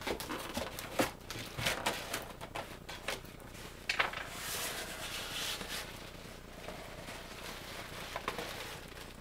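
Packaging being handled as a box is unpacked by hand: irregular crinkles, clicks and knocks, with a stretch of rustling about halfway through.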